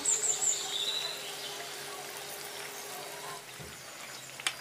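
Hot oil sizzling and bubbling around pastry triangles deep-frying in a pan. There is a single sharp tap near the end.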